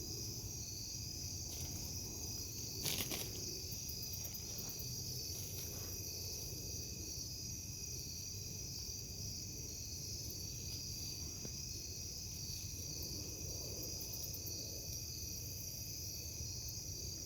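Night insect chorus of crickets, a steady high trill held at a constant pitch throughout. A brief scrape or rustle sounds about three seconds in.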